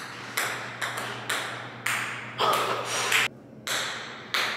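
Ping-pong ball bouncing down concrete stairs: a run of about eight sharp clicks, roughly half a second apart, each ringing briefly in the echoing stairwell.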